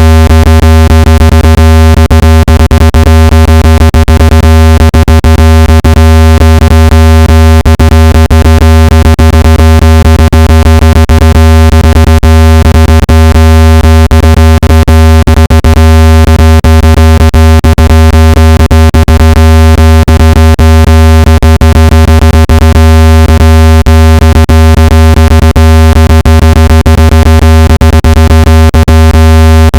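Phone speaker-cleaning tone: a loud, steady, low electronic tone, buzzy with many overtones and peppered with frequent clicks, of the kind played through a phone speaker to shake out water and dust.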